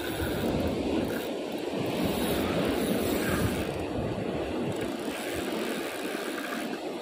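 Steady rush of ocean surf, with wind on the microphone.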